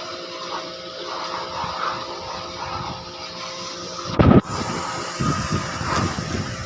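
Steady motor hum with a hiss, typical of a pressure washer used for aircon cleaning. There is a brief loud thump about four seconds in.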